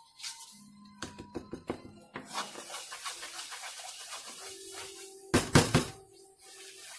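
Wooden spatula stirring and scraping a thick gram-flour and sugar-syrup batter around a nonstick kadai: scattered soft scrapes and knocks, with one louder scrape a little over five seconds in.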